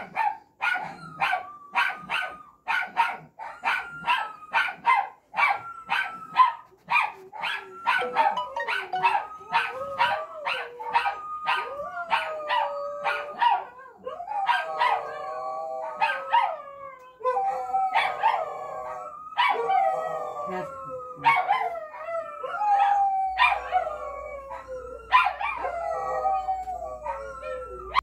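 Dog barking in a quick run of about two to three barks a second, the barks giving way to long, wavering howls and whines in the second half.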